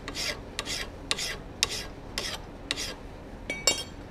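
Hand file rasping across the edge of a 4142 steel hot-cut chisel in quick push strokes, about two to three a second, shaping the short chamfer of its cutting edge. The filing stops about three and a half seconds in with a short, bright metallic ring.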